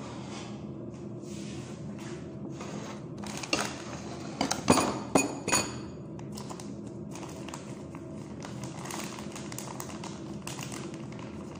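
Kitchen handling sounds: a short run of sharp knocks and clatters about four to six seconds in, over a steady low hum.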